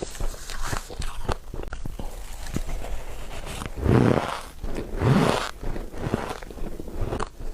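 Ice being bitten and chewed close to the microphone: many sharp cracks, with two louder, longer crunches about four and five seconds in.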